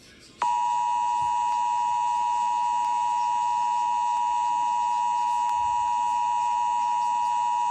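Emergency Alert System two-tone attention signal: the 853 Hz and 960 Hz tones sounding together as one long, steady, unwavering tone that starts about half a second in.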